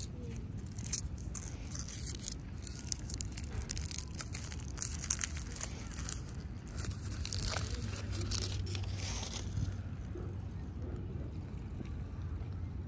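Plastic food packaging crinkling and tearing open: a run of sharp crackles that dies down about ten seconds in.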